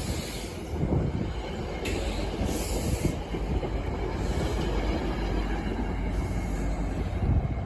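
Train rolling past on the rails: a steady low rumble of wheels and cars, with brief higher hissing patches.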